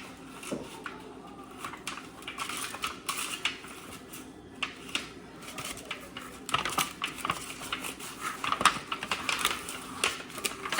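Cake pans being greased with butter on pieces of napkin: scraping and rubbing with light clicks and clinks of the pans, busier in the second half.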